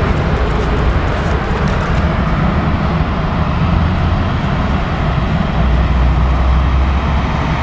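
Steady low rumble of an Airbus A330neo's Rolls-Royce Trent 7000 turbofans at low taxi thrust, growing a little stronger about two-thirds of the way through.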